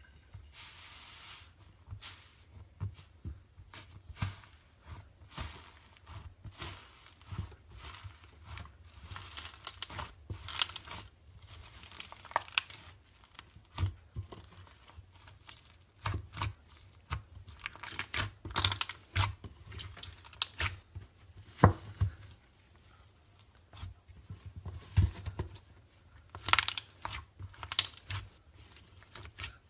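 Slime being squished and stretched by hand: a steady run of irregular sticky clicks, pops and crackles.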